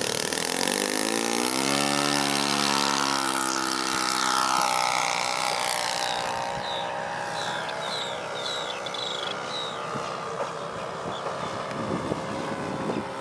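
Saito 72 four-stroke glow engine of an RC model airplane opening up to full throttle for takeoff. Its pitch rises over about a second and then holds steady. After a few seconds it fades and drops in pitch as the plane climbs away.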